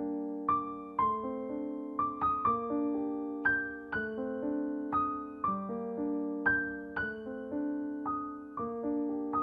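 Background piano music: single notes struck about twice a second over held low chords, at an even, gentle pace.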